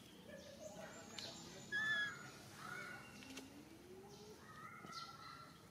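Several short, high-pitched chirping calls, the loudest about two seconds in.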